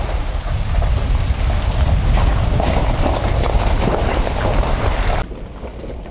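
Vehicle driving over a rough gravel track: a loud, steady rumble with rattling and crunching, dropping in level about five seconds in.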